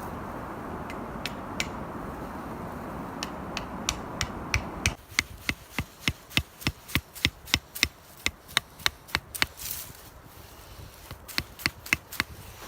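Wood being chopped with a hand tool in quick, sharp strokes, about three a second, most likely shaping tent pegs. A steady rush of wind under the first five seconds stops abruptly.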